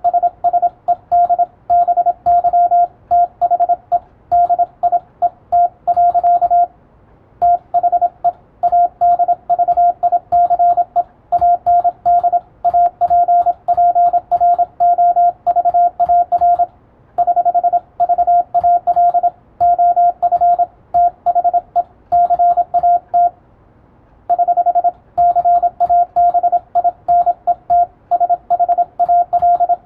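Morse code (CW) tone of about 700 Hz, keyed on and off in rapid dots and dashes with brief pauses between groups. It is sending English plain text, copied as "BY THE DIET / THE ADVICE AND APPRVAL OF THE CABIN".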